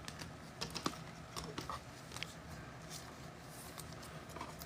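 Faint scattered clicks and taps of trading cards being handled, several in the first two seconds and one more near the end.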